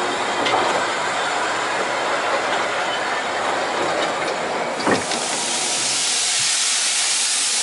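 Narrow-gauge steam train running with a steady rumble and rattle. About five seconds in, after a sharp knock, a steady hiss of escaping steam takes over.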